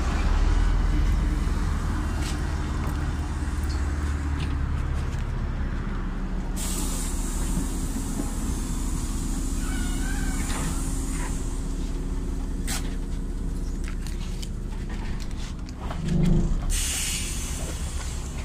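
Inside a LiAZ 5292.67 city bus on the move: its YaMZ-53624 natural-gas engine runs with a steady low drone under road noise, with stretches of hissing partway through. A short, louder thump comes near the end.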